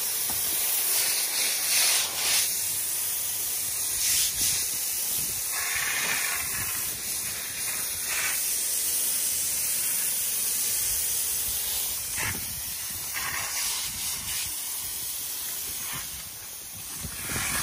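Steady hiss of water spraying from a hose across fresh concrete, with a few brief louder surges.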